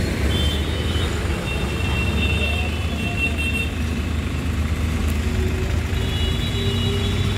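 New Holland 3600 tractor's diesel engine, fitted with a 3630 engine, idling steadily with an even low rumble.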